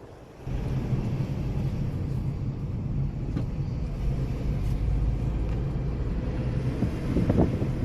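Steady low rumble of a running motor vehicle, starting about half a second in.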